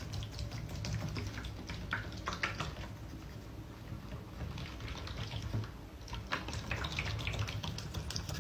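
Hedgehog's claws clicking and scratching on the hard surface of a bathtub as it scurries about, a rapid, irregular run of small ticks over a low background rumble.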